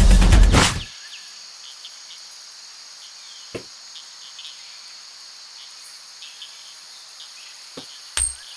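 A loud sound cuts off under a second in, leaving a steady high chirring of crickets. A few short clicks stand out, one midway and two near the end.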